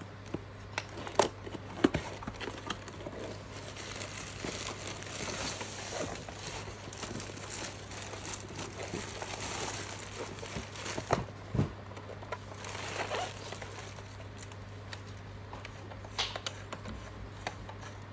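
Plastic packaging crinkling and rustling as a boxed fan is unpacked, with scattered sharp clicks and taps of handling.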